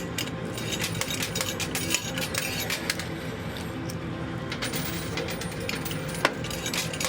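Quarters clinking and dropping in a coin pusher machine: many quick, irregular metallic clicks over the machine's steady hum.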